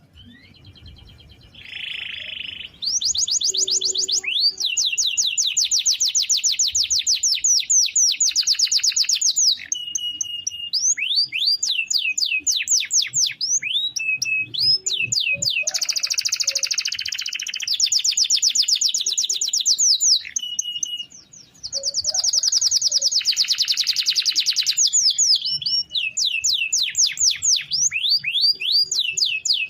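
Domestic canary singing long rolling trills: fast runs of rapidly repeated sweeping notes, switching from one tour to the next every few seconds, with a short break about two-thirds of the way through.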